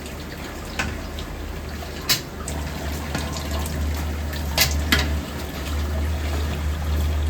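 Water running, with a steady low hum underneath and a few sharp clinks.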